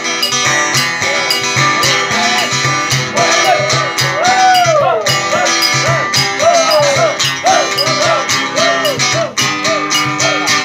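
Two acoustic guitars strummed in a steady rhythm, with a man's voice singing a wavering, sliding melody over them from about three seconds in.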